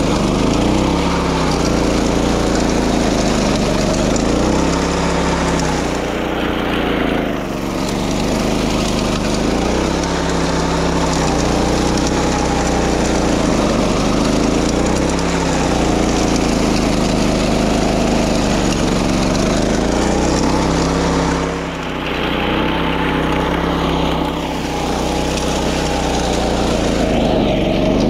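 Small petrol engine of a walk-behind wing mower running at working speed while it cuts grass, its pitch rising and falling every few seconds as the load changes.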